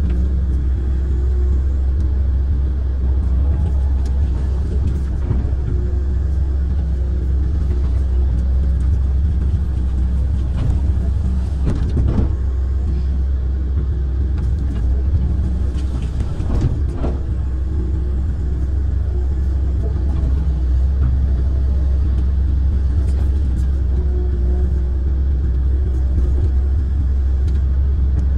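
Kobelco amphibious excavator's diesel engine running with a steady low drone while the arm and bucket work, heard from the cab, with a few faint knocks around the middle.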